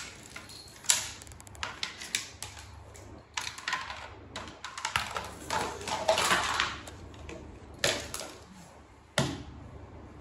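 Plastic toys knocking and clattering on a tiled floor as a baby handles them: irregular clicks and taps, loudest in a busy cluster in the middle and in single knocks about a second in and near the end.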